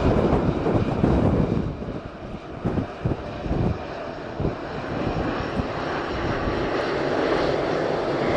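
Jet engines of a Boeing 737-700 BBJ (CFM56-7 turbofans) running: a dense, steady rumble and roar that dips a couple of seconds in and builds again toward the end.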